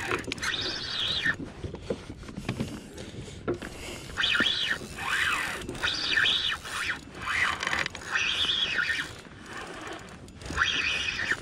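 Okuma Ceymar C65 spinning reel's drag whining in about seven short bursts, each under a second and bending in pitch, as a hooked bonito pulls line off the spool.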